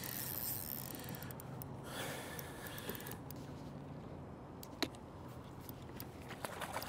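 Faint steady wash of water and wind around a kayak, with a few light clicks and one sharp knock about five seconds in.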